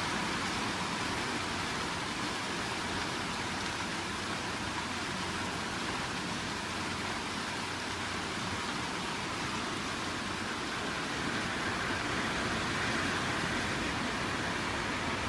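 A steady, even rushing noise with no separate sounds in it, swelling slightly about twelve seconds in.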